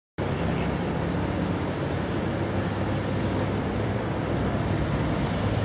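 Steady low rumble of distant road traffic, even in level throughout, with no clear club strike standing out.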